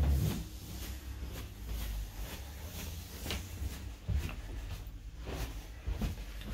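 Footsteps going down carpeted stairs: soft, uneven thuds about once a second, over a low rumble of handling noise.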